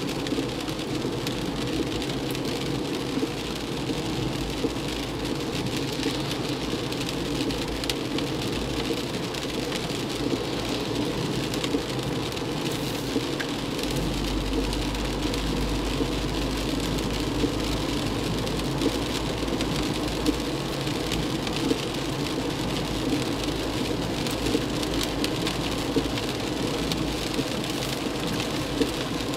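Heavy rain pelting a moving car, mixed with tyre hiss and road noise on the wet road: a steady rush dotted with many small drop hits. A low rumble grows louder about halfway through.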